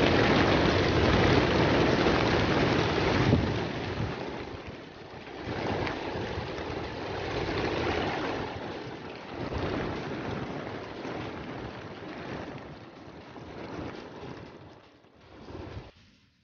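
Wings of a large flock of racing pigeons clattering as they are released from a transport truck's crates and take off together. The noise is loudest for the first few seconds, then rises and falls in waves as it fades away.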